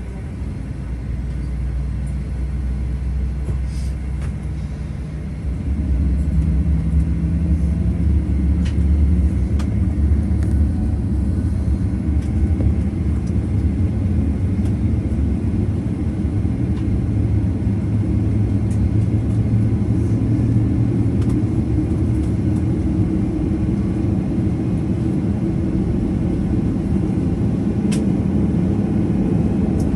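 Steady low rumble inside the cabin of a Boeing 737-800 on the ground, from its CFM56-7B engines and the rolling airframe. It grows louder about five seconds in and then holds steady, with a few faint clicks from the cabin.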